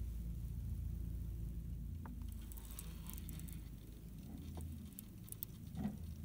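Fishing reel being cranked against a hooked fish: short bursts of fast ticking, about two seconds in and again near five seconds, over a steady low rumble. A dull knock near the end.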